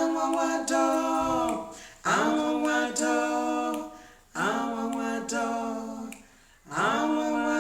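Two women singing a gospel song a cappella in harmony. Four long held phrases, each opening with an upward slide in pitch, with short breaths between them.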